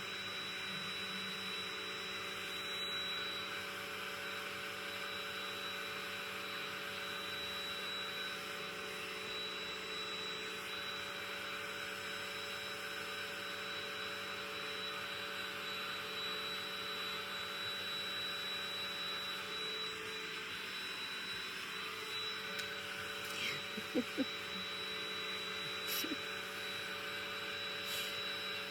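Vacuum cleaner running steadily with a constant high-pitched whine over its motor noise. A few short clicks come near the end.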